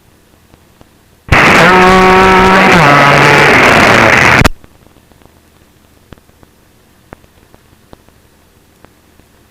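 A loud burst of noise over the aircraft radio and intercom, lasting about three seconds, with steady tones in it that drop in pitch midway, starting and cutting off abruptly. Before and after it, faint clicks on an otherwise quiet line.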